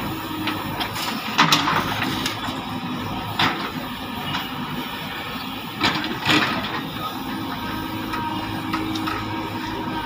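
Diesel engines of two JCB 3DX backhoe loaders running steadily under load as their backhoe arms dig and swing, with several sudden knocks from the buckets and soil, the loudest about a second and a half in and again around six seconds in.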